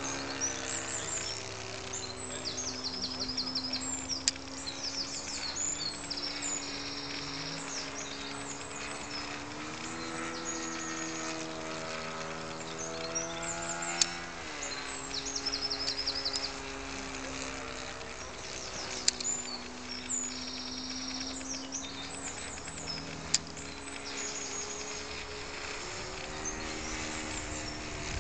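Motor of a radio-controlled model Cessna 177 Cardinal droning steadily in flight. Its pitch rises a little around the middle, drops sharply, then steadies again. Birds chirp repeatedly over it, high-pitched.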